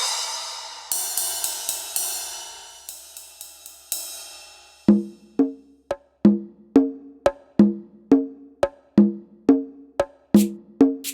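Turbo Electronic TDX-16 electronic drum kit played on its Percussion kit: a crash rings and slowly dies away with several quick hits over it. About five seconds in, a steady beat of short pitched wood-block-like strikes starts, roughly two a second.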